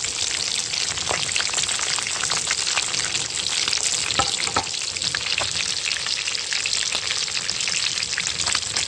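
Fish deep-frying in hot oil: a steady, dense crackling sizzle with a few sharper pops.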